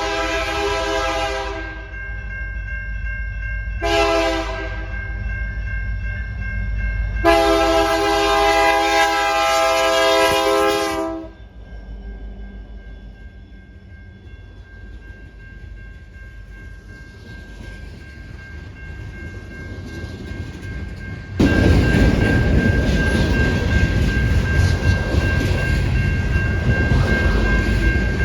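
Diesel freight locomotive, a CP SD70ACU, sounding its air horn: one blast ending about two seconds in, a short blast, then a long one, over a low engine rumble. From about two-thirds of the way through, the loud rumble and rattle of the train passing close.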